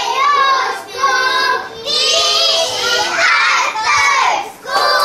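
A group of young children singing together in unison, in long, held, high-pitched syllables.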